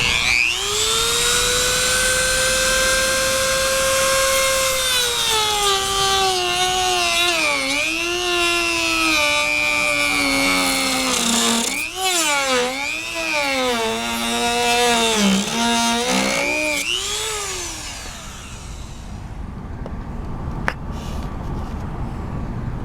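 Corded Dremel rotary tool with a reinforced cutoff wheel spinning up to a steady high whine. Its pitch then dips and wavers again and again as the wheel bogs down cutting through the hard plastic of the door pull. About three-quarters of the way through it winds down.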